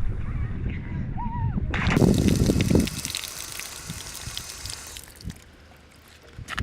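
Water rushing and splashing, like a wave breaking: it surges loud about two seconds in and fades away over the next three seconds, over a low rumble. A short arching chirp comes just before the surge.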